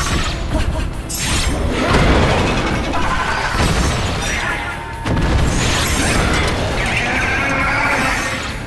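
Battle music with heavy hit, crash and clanking sound effects from a giant hero-versus-monster fight, several loud impacts landing over the music.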